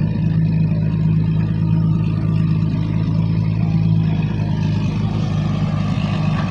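Excavator's diesel engine running steadily with an even, low drone.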